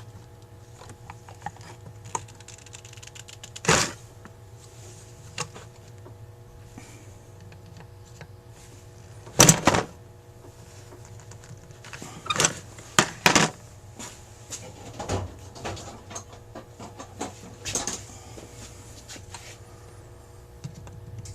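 Small metal carburetor parts and hand tools clicking and knocking on a workbench as a carburetor is being taken apart, with about five louder knocks among the lighter clicks. A faint steady hum runs underneath.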